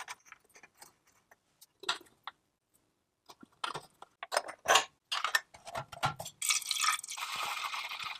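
Irregular clicks, knocks and short scrapes of hands-on work, then a steady hiss for the last second and a half or so that cuts off suddenly.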